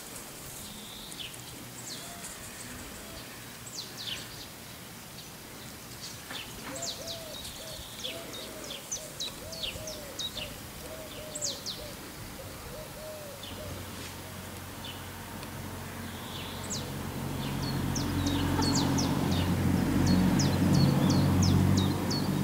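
Songbirds chirping and twittering outdoors, with a run of short, low, repeated calls about twice a second in the middle. Over the last several seconds an engine's steady drone swells in and becomes the loudest sound.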